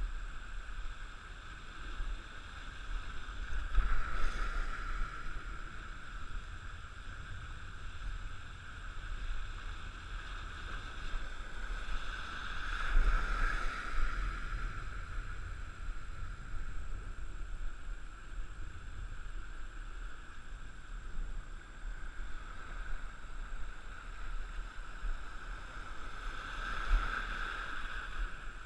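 Shallow surf washing and splashing around a wading angler's legs, with wind rumbling on the microphone. The water noise swells louder three times: about four seconds in, around the middle, and near the end.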